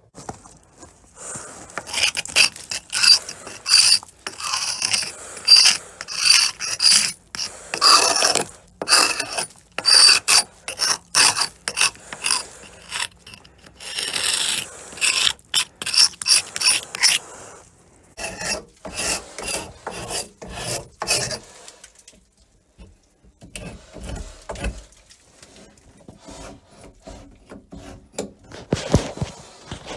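A hand tool scraping and picking at the planking and seams of an old wooden boat hull, in repeated rasping strokes about one to two a second. About two-thirds of the way through the strokes stop, leaving fainter scattered scrapes and knocks.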